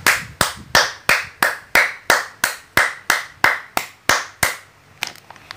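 Hand claps in a steady rhythm, about three a second, some fourteen in all, stopping about four and a half seconds in.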